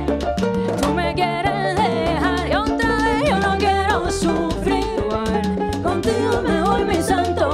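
Live Cuban bolero-son music with piano, bass and hand drums in a steady rhythm, and a woman singing wavering runs over it.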